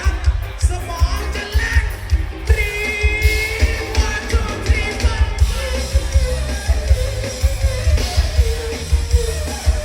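A live band playing a Thai pop-rock song, with a loud, steady kick-drum beat, electric instruments, and a singer holding long notes.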